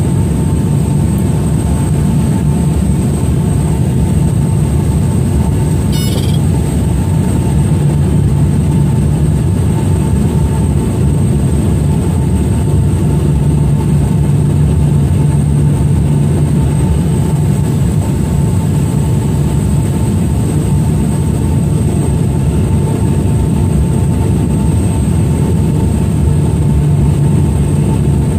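A small propeller aircraft's engine runs with a steady, loud drone: a low hum with a thin, high whine above it, unchanging throughout.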